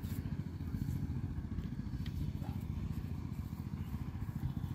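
Wind buffeting the microphone outdoors: a steady, choppy low rumble, with a couple of faint ticks.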